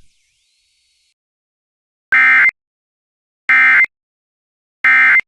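Three short, identical bursts of two-tone digital data squawk, evenly spaced about a second and a half apart. This is the Emergency Alert System (SAME) end-of-message code sent three times to close the warning broadcast.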